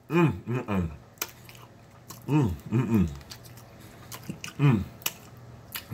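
A man chewing a mouthful of chicken and humming appreciative "mmm" sounds with falling pitch in three short groups. Wet lip smacks and chewing clicks come between the hums.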